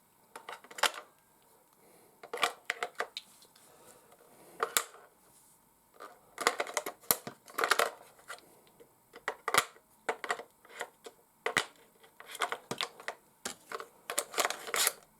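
Irregular sharp plastic clicks and short rattles as batteries are fitted into a hand-held Traxxas RC transmitter and its battery cover is handled.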